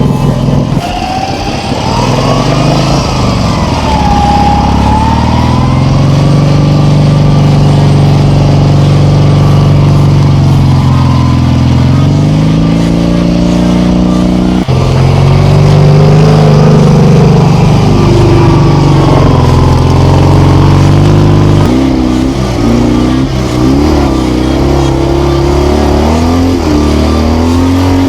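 Motorcycle engines running and revving, the pitch rising and falling with the throttle. The sound changes abruptly about 15 and 22 seconds in.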